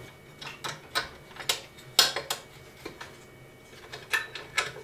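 Irregular sharp metal clicks as the belt sander's adjustable work-table handle is worked: sprung off the toothed part of its shaft and screwed in. The loudest click comes about two seconds in.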